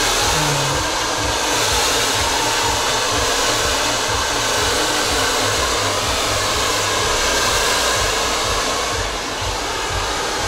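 Handheld electric hair dryer running steadily, a loud rush of blown air during a blow-dry, easing a little near the end.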